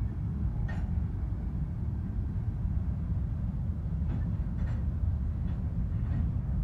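Freight train of covered grain hopper cars rolling past close by: a steady low rumble of steel wheels on the rails, with a few faint clicks over it.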